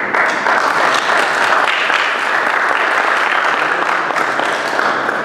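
Applause: several people clapping their hands steadily.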